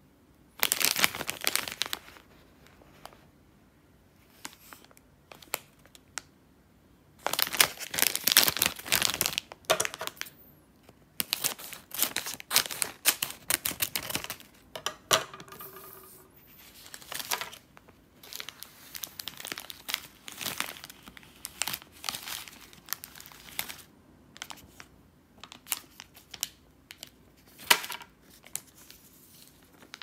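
Plastic packaging of a throat-lozenge candy bag crinkling and tearing as the bag is handled and opened. The sound comes in irregular bursts of rustling with quiet pauses between them.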